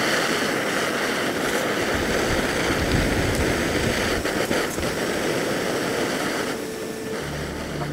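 Steady rushing hiss of a portable gas canister stove burning under a stainless stovetop coffee pot, with low wind buffets on the microphone about two to three seconds in. The hiss eases near the end as background music comes in.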